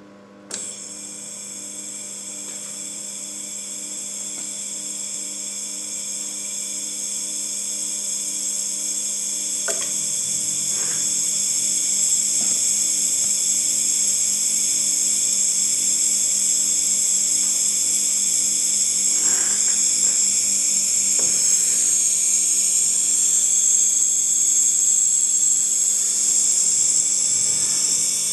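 Small homemade hermetic compressor switched on about half a second in, running with a steady high whine that grows louder over the first dozen seconds, then holds.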